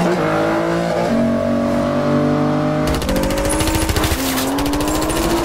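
Sports car engines revving hard at high speed, several pitches sliding up and down as they shift, including the Aston Martin DBS's. About three seconds in, a harsher, rapid rasp joins them.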